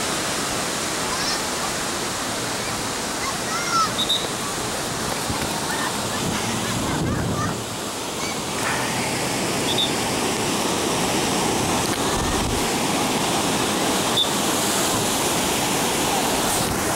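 Steady rushing of wind and surf during a parasail descent toward the beach, with a few faint high chirps.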